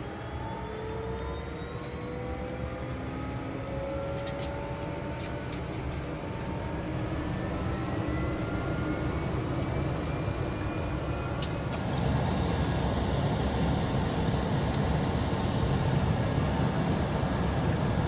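The Cessna 208B Grand Caravan EX's Pratt & Whitney PT6A-140 turboprop and propeller, heard inside the cabin. Its whine rises slowly in pitch as it grows louder, and the noise steps up about twelve seconds in.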